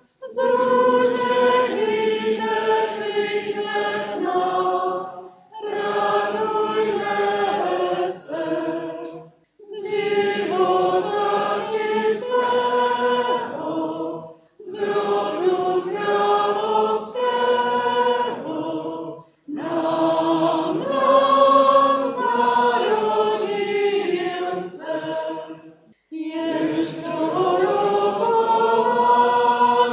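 A choir of voices singing a hymn in phrases of about four to six seconds, each followed by a brief pause for breath.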